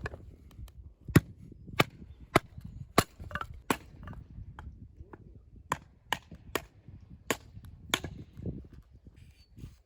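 Sharp chopping strikes into firewood, ten blows in two runs of five with a short pause between them.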